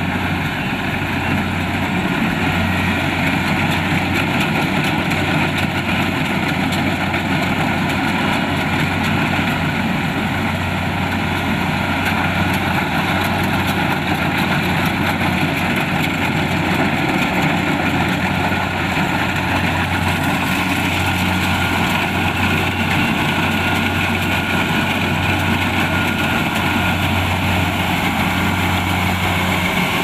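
Kubota DC-70 Plus rice combine harvester running steadily while harvesting: the diesel engine's constant low hum with the clatter and whirr of its cutting and threshing machinery. The higher machine noise gets a little louder about two-thirds of the way through.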